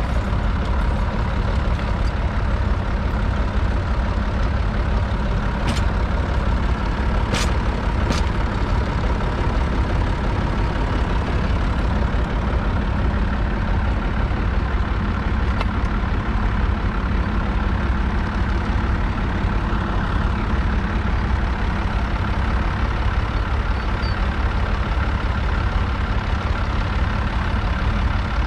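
Massey Ferguson 135's 2.5-litre three-cylinder diesel engine running steadily, with a deep rumble. Three short clicks sound about six to eight seconds in.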